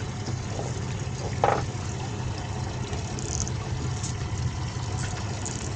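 Boat engine idling steadily, with a brief knock about a second and a half in.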